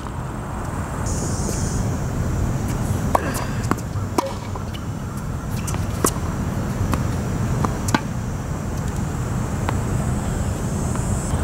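Tennis rally on a hard court: sharp pops of the ball striking racket strings and bouncing, one every second or two, over a steady low background rumble.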